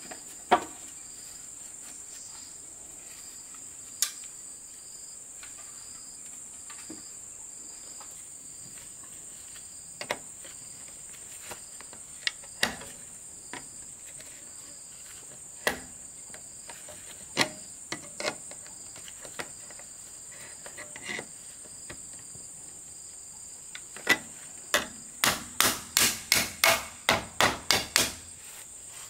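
Sharp knocks of hand tools striking a green bamboo pole as it is cut: scattered single knocks, then a quick run of about a dozen, roughly three a second, near the end. Insects chirr steadily and high throughout.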